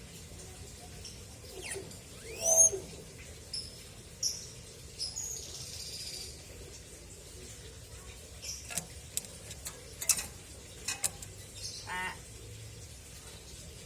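Pet hill myna calling: a loud sweeping whistle about two and a half seconds in, then short high whistled notes, and later a run of sharp clicks and a buzzy call.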